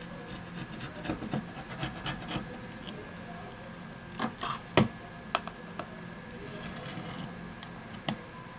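Hands scraping and rubbing at a smartphone's metal midframe, with scattered scratchy clicks and one sharper click about five seconds in, as old display adhesive is picked off the frame.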